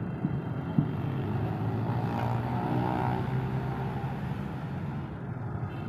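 Massey Ferguson 385 tractor's four-cylinder diesel engine running at low speed as it reverses down a steel loading ramp, the engine note lifting slightly around two to three seconds in. A couple of sharp knocks sound in the first second.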